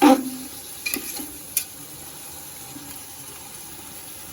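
Chicken pieces sizzling in hot oil in a cooking pot while being stirred. A loud knock of the spoon against the pot comes at the start, and a few lighter clinks follow over the next second and a half.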